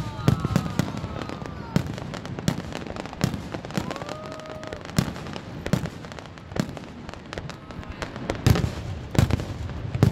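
Fireworks display: aerial shells bursting in a rapid, irregular series of bangs, coming thickest near the end.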